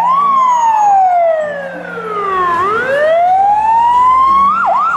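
Fire engine siren wailing: one slow fall and rise in pitch, then two quick dips near the end.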